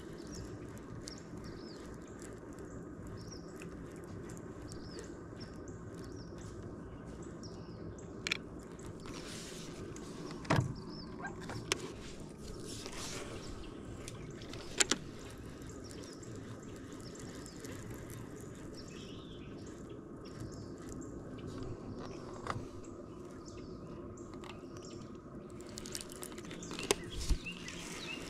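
A steady low hum with birds chirping faintly, broken by a few short sharp knocks and clicks.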